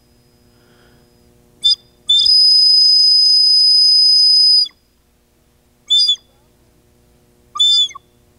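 A high-pitched whistle blown in four blasts: a short one, a long steady one of about two and a half seconds, then two more short ones.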